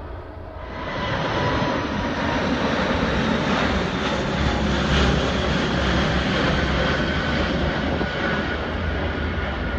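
Four-engine Emirates Airbus A380 jet engines during takeoff: a loud, steady roar with a high whine over it, rising sharply about a second in.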